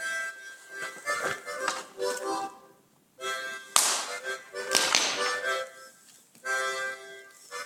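Harmonica playing a tune in short chordal phrases with brief pauses between them. Two short noisy bursts cut across it around the middle.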